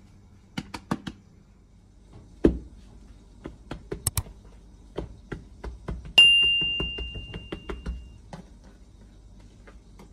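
Hands working bread dough on a countertop: a scatter of light taps and knocks, with one heavier thump about two and a half seconds in. About six seconds in comes a single clear ding that rings on and fades over a couple of seconds.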